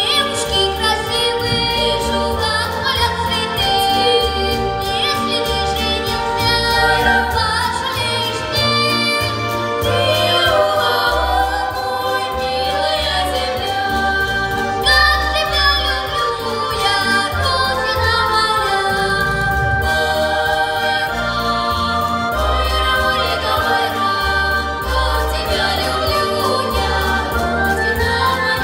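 Children's vocal ensemble singing an Adyghe folk song in several voices, accompanied by the Adyghe national harmonica (a button accordion) with a pulsing bass and the clack of a pkhachich wooden clapper keeping time.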